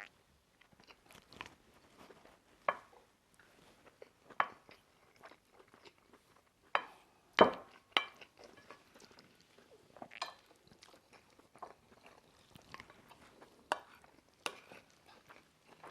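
Two people eating chicken korma and rice as fast as they can: chewing and mouth sounds, broken by scattered sharp clicks and knocks. The loudest click comes about seven and a half seconds in.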